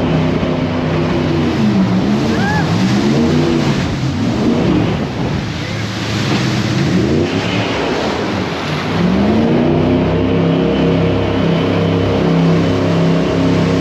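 Jet boat engine changing revs: its pitch drops and climbs back several times between about two and nine seconds in, then holds at a steady run, over a constant rushing noise.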